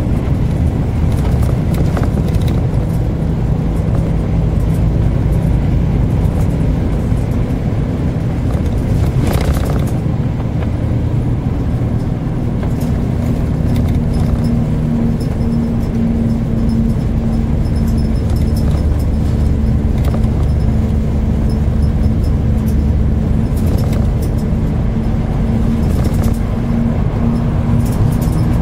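Road noise heard inside a moving car's cabin on an expressway: a steady low drone of tyres and engine. A steady low hum joins in about the middle, and there are a couple of brief hisses.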